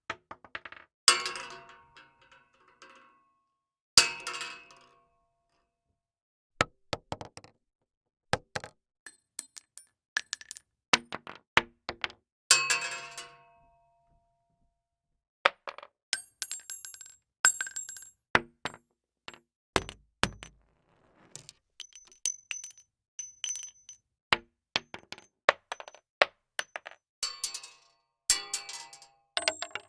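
A run of short metal sound effects one after another: clanks and clinks, a few heavier metal hits that ring out for about a second, and bursts of rapid, small metallic clicking and jingling in the second half.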